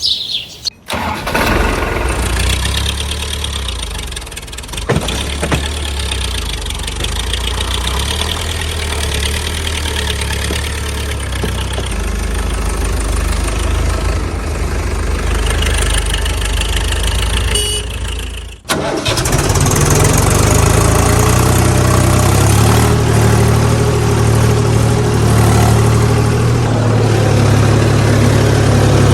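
Engine running steadily. About 19 s in it cuts abruptly to a different, louder engine running steadily with a deeper hum.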